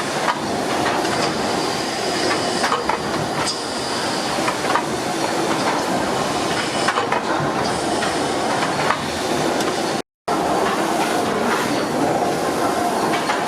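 Steam ploughing engine running, a steady mechanical clatter with hissing steam and irregular clicks and knocks from its motion. The sound cuts out for a moment about ten seconds in.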